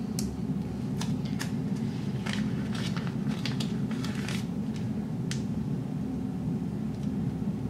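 Sticker paper crackling and ticking in a series of short, irregular snaps as a planner sticker is peeled back up off the page and pressed down again, over a steady low hum.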